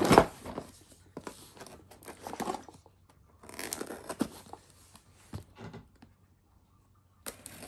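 Packaging being torn and rustled open by hand: a sharp rip right at the start, then bursts of crinkling and handling with a pause near the end.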